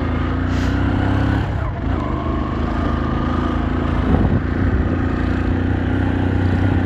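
Motorcycle engine running at a low, steady pace while riding along a rough village road, with a couple of brief knocks about four seconds in.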